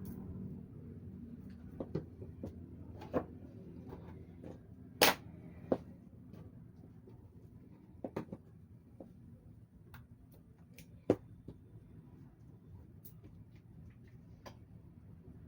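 Scattered sharp clicks and taps, about a dozen, over a steady low hum; the loudest come about five seconds in and about eleven seconds in.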